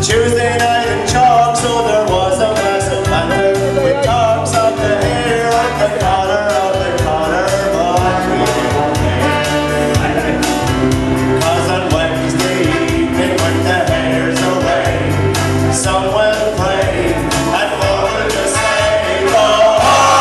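A group of men singing a song together over backing music with a steady beat.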